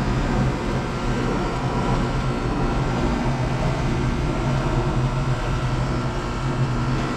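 A 2017 SmartComfort 2-ton heat pump's outdoor unit running with a steady mechanical hum and fainter higher tones over it, part of its defrost cycle.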